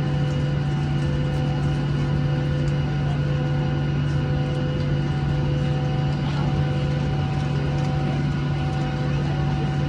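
Steady droning hum inside a Boeing 737-800's passenger cabin from its engines and air systems, running at a constant level, with a few faint steady tones over it and one of them cutting in and out.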